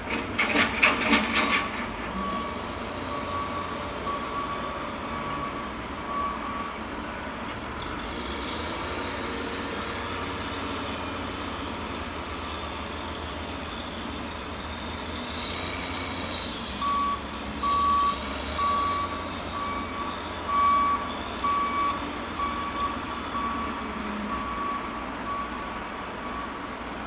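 Heavy mulch-yard equipment: a burst of loud metallic clanks, then a vehicle's reversing alarm beeping steadily in two long runs over a low engine rumble.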